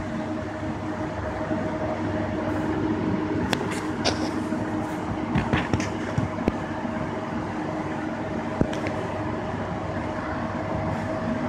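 A steady mechanical hum over a constant noise, with a few sharp clicks and knocks about a third of the way through and one more later.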